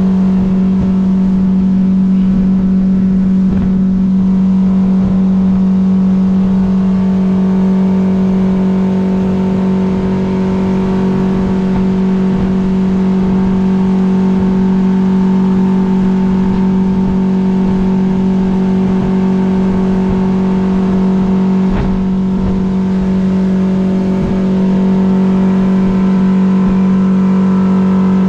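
Fishing boat's engine running at a steady speed, one constant unchanging note with no rise or fall.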